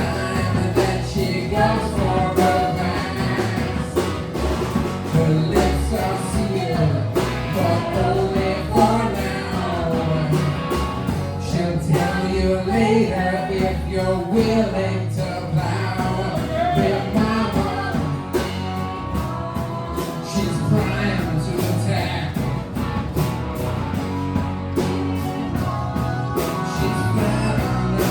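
Live rock-and-roll band playing with a steady drum beat, bass and guitar.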